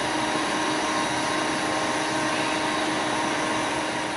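Steady drone of fire-brigade machinery running at a fire scene, a hum with a few held tones.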